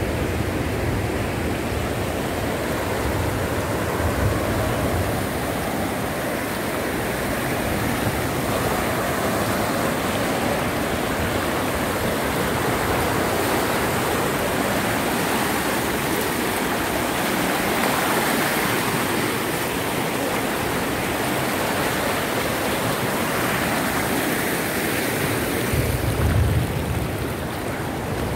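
Floodwater rushing fast through a flooded street, a steady heavy rushing and splashing after torrential rain.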